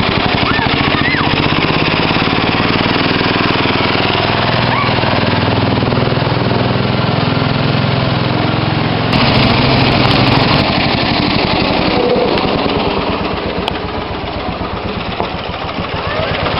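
Westwood W11 ride-on mower's engine running through a chrome stack exhaust as the mower drives along, a rapid, even train of firing pulses. It gets louder about nine seconds in and eases off a few seconds later.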